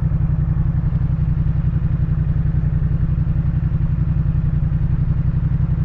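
2018 Yamaha MT-07's parallel-twin engine running steadily at low revs through a Jeskap K4 full exhaust, a low, even pulsing beat that holds the same pitch throughout.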